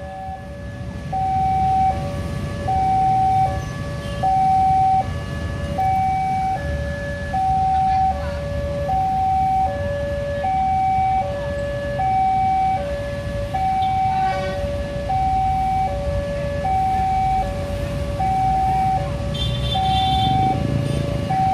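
Railway level-crossing warning alarm sounding its electronic two-tone signal, alternating a higher and a lower tone about every second and a half, warning that a train is coming and the crossing is closed. Under it runs the low rumble of waiting road traffic.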